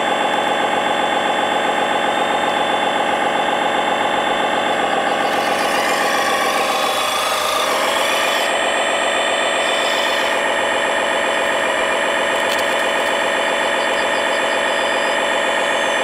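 Simulated diesel engine sound from a 1/14-scale RC model's sound unit, idling steadily. About six to eight seconds in, the pitch dips and a brief rush of hissing noise passes over it before it settles back to the steady idle.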